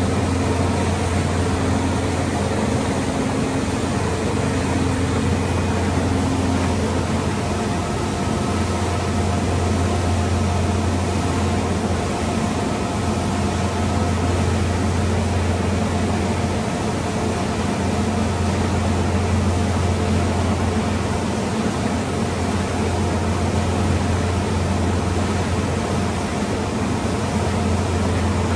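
Steady low hum and even hiss of building ventilation, unchanging throughout, with a faint higher tone pulsing on and off in the first few seconds.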